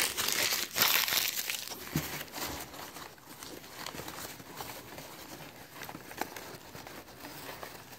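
Crumpled paper packing crinkling and rustling as a hand digs through it, with a cardboard box flap being moved. The sound is louder in the first couple of seconds, then goes on as fainter crackles.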